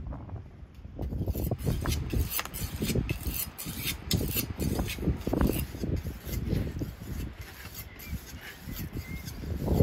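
Knife cutting raw bone-in meat on a wooden cutting board: irregular scrapes and knocks of the blade through the meat and against the board, starting about a second in.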